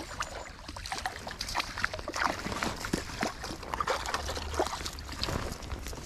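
Footsteps crunching along a frozen riverbank, with irregular crackles between the steps, over faint sloshing of water.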